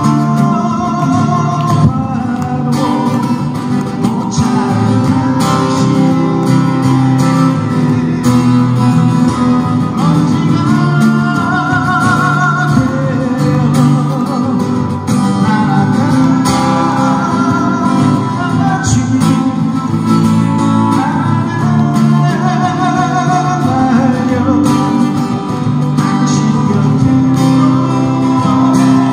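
Two acoustic guitars played together, strummed and picked, with a man singing a Korean song over them through the stage sound system.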